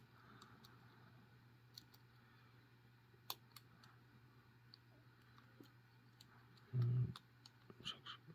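Faint scattered clicks and ticks of a hook pick working the pins inside a Master Lock 410 lockout padlock, over a low steady hum. About seven seconds in, a louder dull thump.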